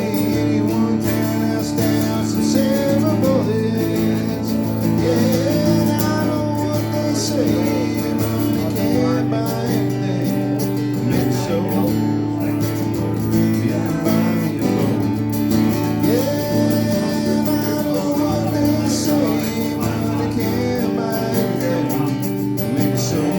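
Country music: a band playing with guitars to the fore, in an instrumental stretch of the song with little or no clear lyric.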